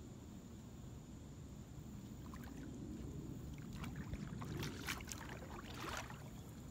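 Kayak paddle blades dipping into calm water and dripping, a run of small splashes in the second half over a steady low rumble.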